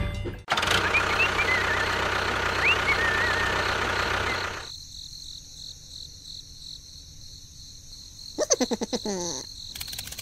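Rushing water with a few short bird chirps for the first few seconds, then it cuts off to a faint hiss. Near the end comes a brief burst of a squeaky, voice-like cartoon sound.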